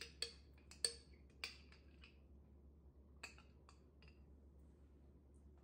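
Metal utensil clinking against a small glass jam jar as jam is scooped out: a quick run of four clinks in the first second and a half, then two more a little after three seconds in.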